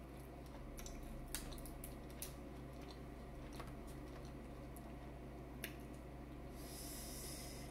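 Faint eating and food-handling sounds over a seafood boil: a few soft clicks and wet squishes, with a short hiss near the end.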